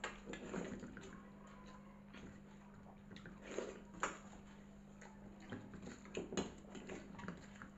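Hands mixing and scooping water-soaked rice (pakhala bhata) in steel bowls: scattered soft wet squelches and light clicks of fingers against the bowls, over a steady low hum.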